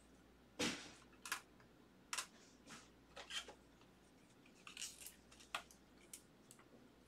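Faint crinkles and ticks of a trading card being handled and slid into a clear plastic sleeve and top loader: a string of short, scattered rustles and clicks, the sharpest about half a second in.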